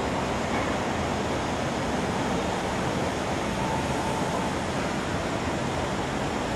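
Steady, even rushing noise of an SMRT C751B train standing at the platform, its air-conditioning and auxiliary equipment running.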